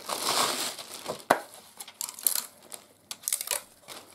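Clear plastic packaging crinkling and a cardboard insert rustling and scraping as a vacuum cleaner floor nozzle is unwrapped by hand, with one sharp knock about a second in and several lighter clicks and taps after it.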